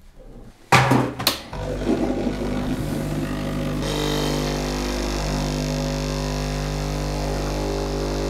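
A portafilter clunks a few times as it locks into a Sage espresso machine. About a second and a half in, the machine's pump starts a steady hum, and a hiss joins it near the middle as the shot pulls at about nine bars of pressure.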